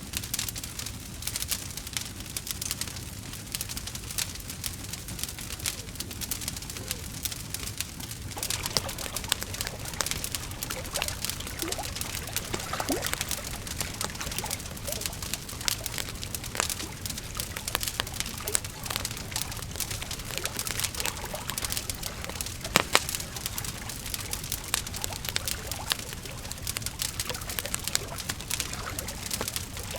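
Wood fire crackling, with a steady stream of small sharp pops and snaps and one louder pop about three-quarters of the way through.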